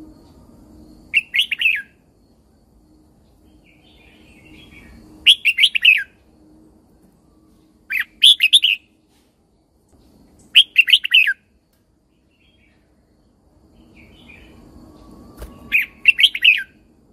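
Red-whiskered bulbul singing: five short, bright warbled phrases of about a second each, spaced a few seconds apart.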